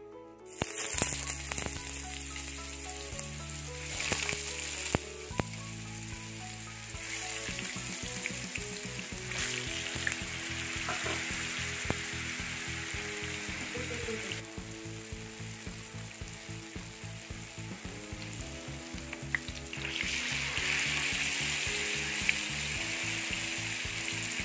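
Slabs of hard tofu frying in hot oil in a non-stick pan: a sizzle with sharp crackling spits that starts suddenly as the tofu goes in, about half a second in, and grows louder near the end.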